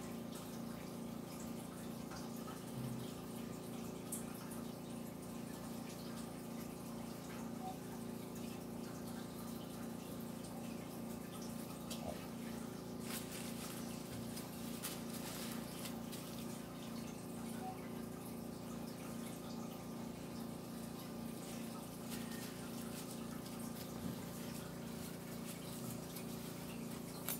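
Steady mechanical hum with a regularly pulsing low tone, and a few faint soft clicks.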